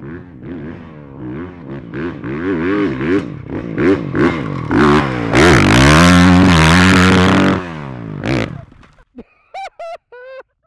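Honda four-stroke motocross bike revving hard through the sand, the engine pitch rising and falling with the throttle and loudest as it passes close about halfway through. It then cuts away, leaving a few short throttle blips near the end.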